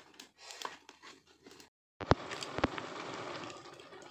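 Wood cooking fire burning under a pot: a steady hiss with two sharp pops about two seconds in. Before that there are only faint, sparse sounds, then a brief drop to silence.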